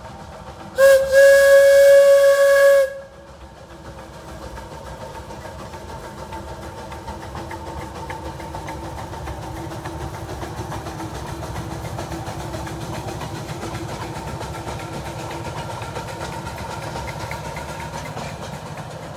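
Steam locomotive B6 2418 sounds its whistle once, a loud two-second blast with a steamy hiss, about a second in. Then the locomotive works its train past, a steady running noise that grows gradually louder.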